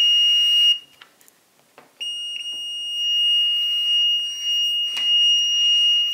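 Fluke 101 multimeter's continuity beeper sounding a steady high tone as the probe tips touch. It cuts out just under a second in and comes back about two seconds in. The tone is scratchy and a bit buzzy, which the owner thinks may be a misaligned speaker.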